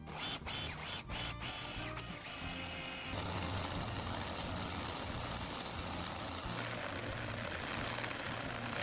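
Background music over a few sharp taps, then a steady, even hiss lasting about six seconds from metalworking in the shop.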